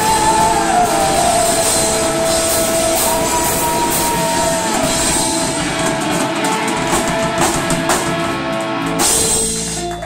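Live rock band, with electric guitar, bass and drum kit, playing out the end of a song: long held guitar notes that bend in pitch over cymbal crashes and drum hits, breaking off near the end.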